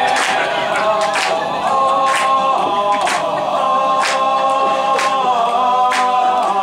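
A small group of male voices singing a cappella in harmony, holding long chords that shift now and then, with a short sharp accent about once a second.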